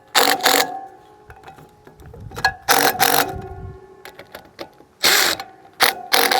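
Ratchet wrench clicking in several short bursts as the caging bolts holding a John Deere 850C parking brake's spring pack compressed are backed off. Faint metallic ringing follows each burst.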